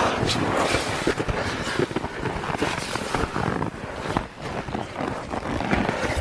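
Boots crunching and scraping through snow in irregular steps, with clothing rustling and knocks close to the microphone.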